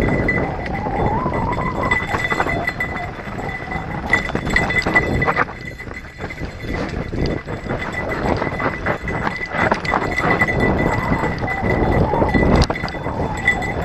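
Mountain bike descending rough dirt singletrack: tyres rumbling and crunching over dirt and stones, the bike clattering over bumps, and wind buffeting the camera microphone. The clatter eases off briefly about halfway through.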